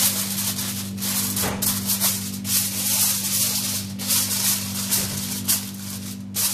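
Aluminium foil crinkling and rustling in irregular bursts as hands fold and crimp it over a baking tray, with a steady low hum underneath.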